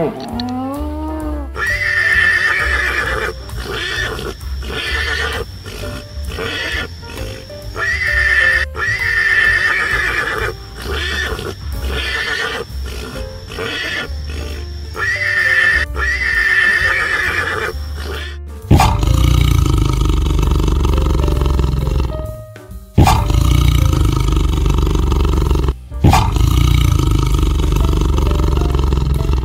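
Animal calls over background music, changing abruptly about two-thirds of the way through to a louder, deeper sound.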